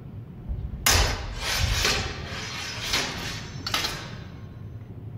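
Longswords clashing in a sparring exchange. There is a sharp clash about a second in, a quick run of strikes just after it, and two more near three and four seconds in.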